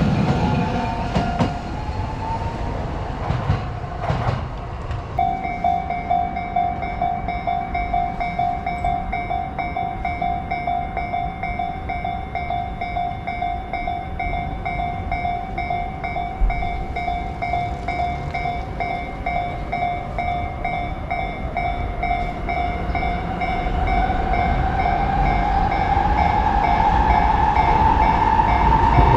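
Japanese railway level-crossing alarm ringing its repeating electronic bell tone, starting about five seconds in. Near the end a train approaches, and a rising whine grows louder over the bell.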